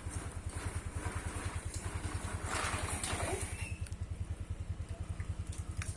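Small engine running steadily nearby, a low rapid putter of about ten pulses a second, like a single-cylinder engine at idle.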